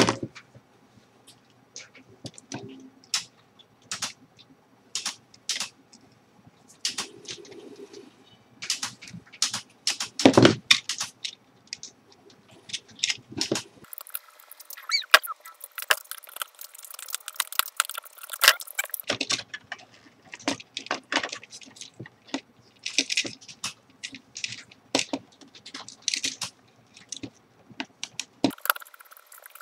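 Irregular clicks, taps and light rattles of hands handling wires and small parts while wiring up a speed controller.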